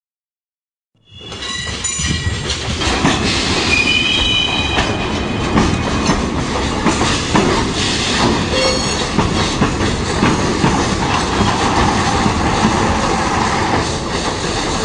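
Railway train rolling on rails, starting suddenly about a second in: a steady heavy rumble with rail clatter, and high wheel squeals in the first few seconds.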